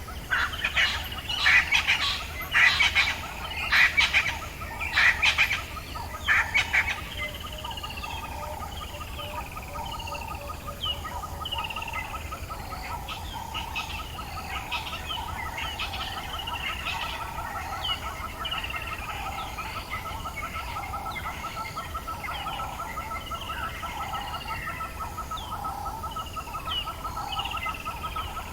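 Dawn chorus of several bird species. For the first seven seconds or so, loud, harsh calls come in about seven bursts. After that a steady trill runs on under many short, falling whistled notes.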